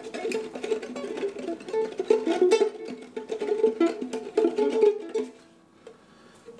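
Ukulele strummed fast, stroke after stroke, stopping suddenly about five seconds in.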